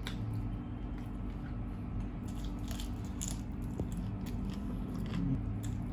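A person eating close to the microphone: biting and chewing, with many small crunchy clicks. A steady low hum runs underneath.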